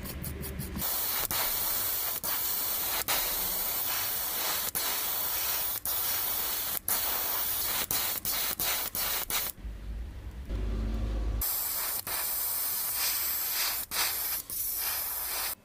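Gravity-feed airbrush spraying paint in a steady hiss, broken now and then by brief pauses. A short low rumble comes about ten seconds in. The first second holds rapid scratchy brush strokes.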